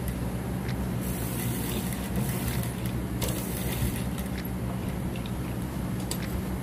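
Industrial sewing machine running steadily with a low motor hum as fabric is stitched, with a few light clicks.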